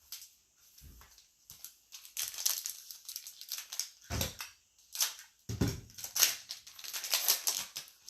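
Plastic wrapper of a basketball trading card pack crinkling and tearing as it is opened by hand, in quick irregular crackles. Two dull thumps come about four and five and a half seconds in.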